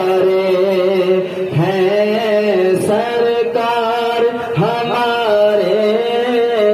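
A man reciting an Urdu naat into a microphone, singing long wavering held notes that swell and fall in a chant-like melody, with a steady low hum beneath part of it.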